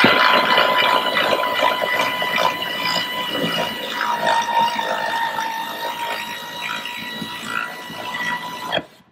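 Pneumatic air ratchet running continuously as it backs out an ATV track-tensioner bolt, a steady high whine with air hiss that slowly fades and cuts off shortly before the end, once the bolt has run all the way out.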